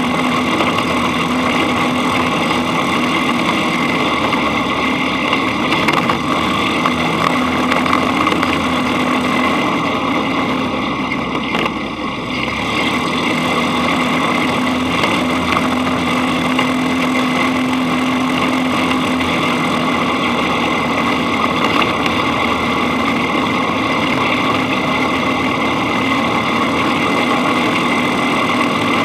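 Dune buggy engine running steadily while driving along a bumpy dirt track, with road and wind noise, heard from a camera mounted on the buggy's front. The engine eases off briefly about twelve seconds in, then picks up again.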